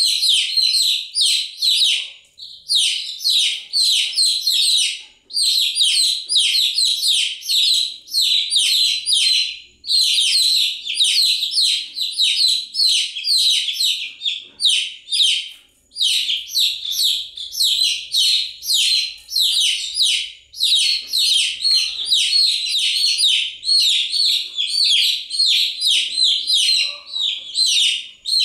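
Baby chicks peeping: a dense run of rapid, high chirps overlapping one another, broken by short pauses every few seconds.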